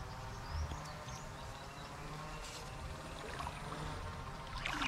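Creek water sloshing and trickling against a low, uneven rumble, with a few faint bird chirps about half a second in and a louder burst of splashing near the end.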